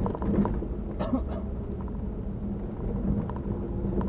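Mitsubishi Pajero running steadily, heard from inside the cabin as engine hum and road rumble, with a couple of short knocks or rattles near the start and about a second in.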